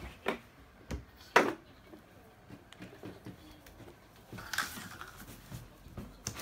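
Plastic toy kitchen pieces being handled: a few sharp clacks in the first second and a half, the third the loudest, then softer shuffling and rustling.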